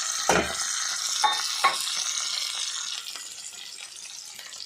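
Chopped onion and green chillies sizzling in hot oil in a pan while being stirred, a spoon knocking against the pan a few times in the first two seconds. The sizzling dies down after about three seconds.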